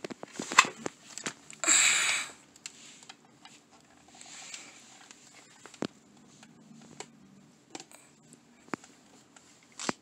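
Crinkling and rustling of a plastic-and-foil package of 3M mounting tape being handled. There is a short, loud rustle about two seconds in, followed by scattered light clicks and taps.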